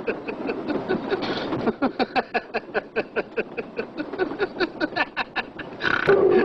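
A person laughing hard in a long, rapid run of short bursts, about five a second. About six seconds in it turns into a louder, drawn-out laugh on a held tone.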